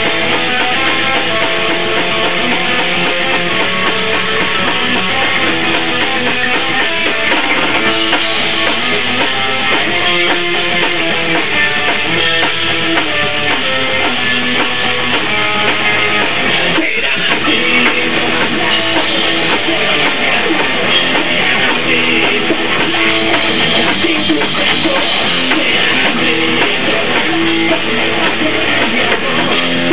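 Rock band rehearsing: distorted electric guitar and drum kit playing an instrumental passage.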